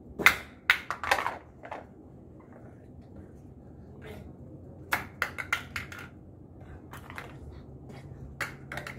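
Irregular sharp taps and knocks in small clusters as a child handles stuffed toys and his hands and toys bump against a hard tile floor; the loudest knock comes just after the start.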